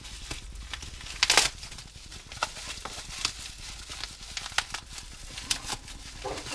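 Plastic wrapping and masking tape being unwrapped by hand: irregular crinkling and clicking, with a louder burst of rustling about a second in.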